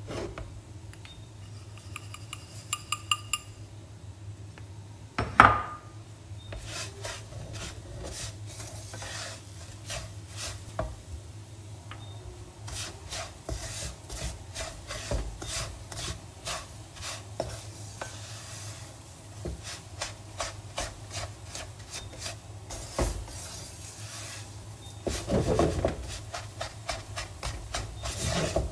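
Nylon slotted spatula scraping and stirring dry semolina around a non-stick frying pan as it roasts, a long run of quick rasping strokes. A few high ringing pings come about two seconds in, and a sharp knock about five seconds in.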